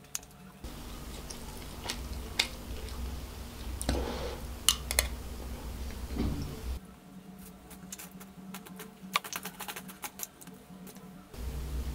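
Close-miked eating of chicken fried rice: chewing mouthfuls and a metal spoon scooping the rice, heard as many sharp irregular clicks and smacks, thickest in the second half.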